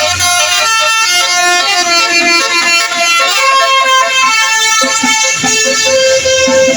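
Multi-tone 'telolet' horns playing a tune, several notes sounding at once and stepping to new pitches every half second or so.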